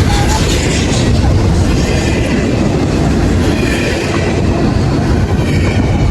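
Train rolling past, a loud steady rumble of wheels on rail with a few faint, short high squeals.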